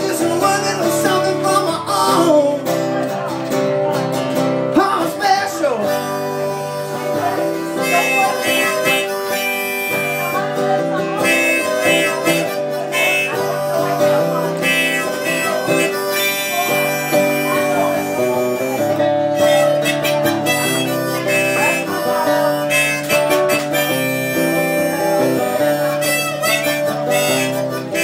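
Harmonica in a neck rack playing an instrumental solo over acoustic guitar accompaniment, the harmonica holding and changing notes above the guitar's steady rhythm.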